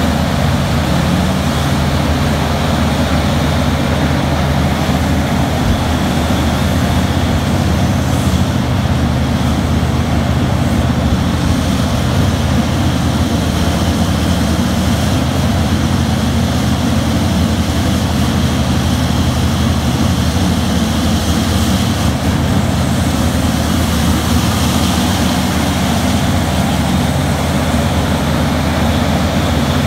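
Engines of a Terex RH170 hydraulic mining front shovel running with a steady, loud drone while the machine swings and digs.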